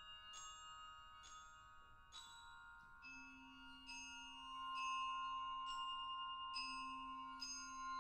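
Slow, sparse notes struck on metal-bar mallet instruments (vibraphone and glockenspiel), a little more than one stroke a second, each note left ringing so the tones overlap into a shimmering chord. A low held note enters about three seconds in, and the playing grows a little louder in the second half.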